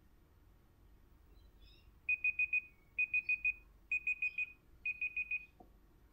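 Android phone's Clock app timer alarm going off at zero: rapid high beeps at one pitch in four bursts of about five, roughly a second apart. The beeping cuts off near the end, followed by a faint tap.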